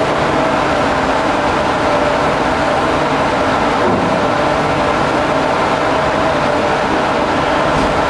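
Research ship's machinery running: a steady, loud mechanical drone with a constant hum.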